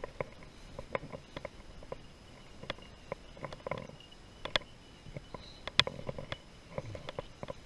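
A pack of beagles barking in short, scattered yelps as they run a rabbit. The loudest yelps come about four and a half and six seconds in.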